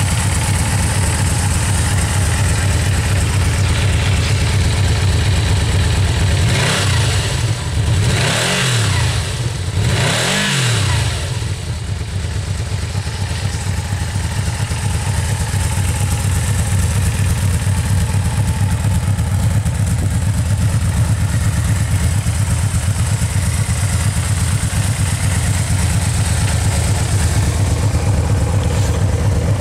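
Yamaha VMAX V4 engine through its stock exhaust, idling steadily and revved in a few quick throttle blips about a quarter to a third of the way through, then settling back to idle.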